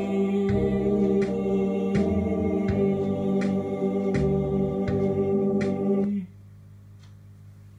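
Closing bars of an organ backing track: sustained organ chords over a steady tick of percussion about twice a second, cutting off suddenly about six seconds in and leaving a faint hum.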